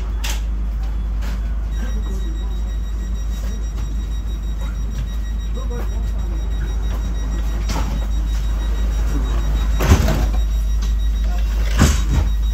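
Inside a DB Class 430 S-Bahn electric multiple unit: a steady low rumble, joined about two seconds in by a faint high-pitched whine. Two sharp knocks come, one a couple of seconds before the end and one near the end.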